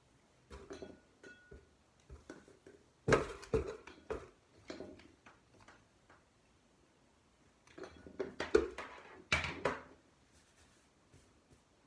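Handling noises: scattered light knocks and rustles of small hard objects being touched and moved, in two bursts of activity, the loudest about three seconds in and around nine seconds in.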